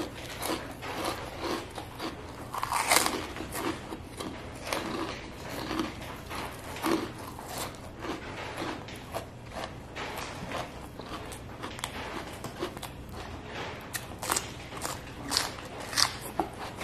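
Mouth sounds of eating by hand: steady chewing with many short, crisp crunches. A run of sharper crunches near the end comes as raw cucumber is bitten.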